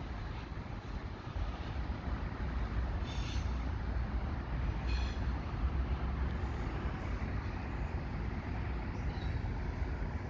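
Steady low rumble of passing heavy vehicles, with two short high squeals about three and five seconds in.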